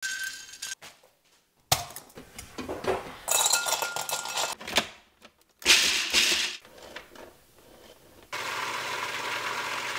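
A run of separate kitchen sounds: pine nuts pattering into a skillet, then glassy clinking of ice cubes dropped into a glass bowl, with a ringing note. A louder rush of clatter follows, and a steady noise starts about eight seconds in.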